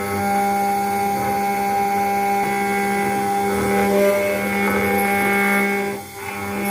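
CNC router spindle running with a steady whine while its small end mill cuts into a brass plate at a slow feed. The sound drops briefly about six seconds in, then resumes.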